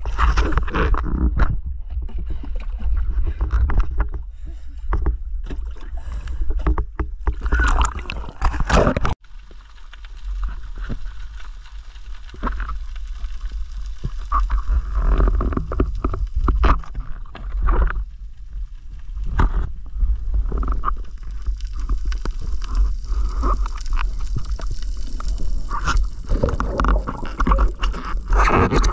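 Water sloshing, splashing and gurgling around a diver's handheld camera, with irregular knocks and scrapes and a steady low rumble of water moving over the housing. The sound cuts off sharply for a moment about nine seconds in, then the water noise carries on as the camera goes below the surface.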